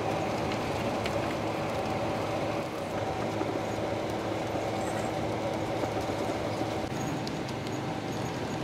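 Steady drone of engine and road noise inside a highway bus cabin travelling at speed, with a faint low hum held throughout.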